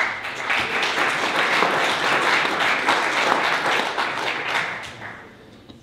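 Audience applauding, many hands clapping at once; it starts suddenly and dies away near the end.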